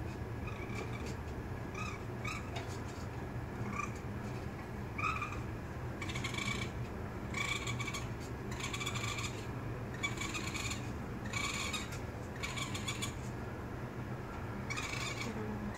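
Raccoon kits crying: repeated high-pitched calls, short chirps at first, then longer cries about once a second from about six seconds in.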